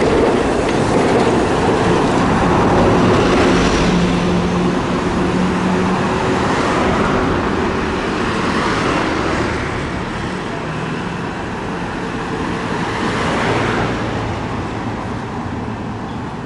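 Street traffic: a city bus and cars pass close by, mixed with the running of streetcars in the tram tracks, in a steady noise that swells a few times as vehicles go by.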